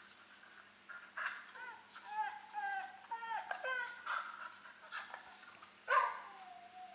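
Puppy whining and yipping: a run of short, high calls that bend in pitch, starting about a second in, then one longer whine that falls in pitch near the end.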